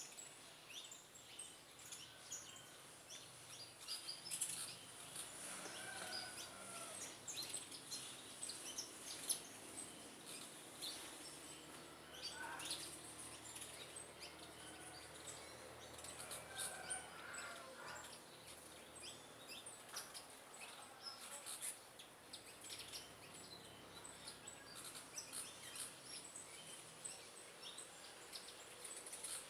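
Several small birds chirping in a faint backyard chorus: many short high chirps throughout, with a few longer, lower calls about 6, 12 and 17 seconds in, over a steady high-pitched hiss.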